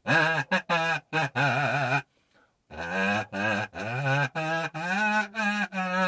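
Kazoo playing an improvised melody: a run of short, wavering notes, a brief pause about two seconds in, then longer notes that slide up and down with a wide vibrato.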